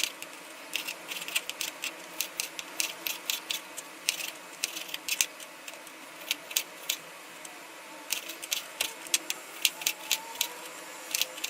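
Knife chopping orange and lemon peels: runs of quick, sharp taps, several a second.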